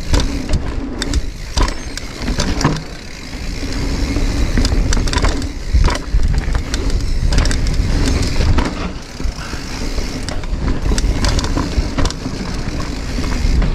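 Giant Reign mountain bike ridden fast down a rough, rocky trail: a constant low rumble of wind and tyres, with many sharp knocks and rattles as the wheels and frame hit rocks.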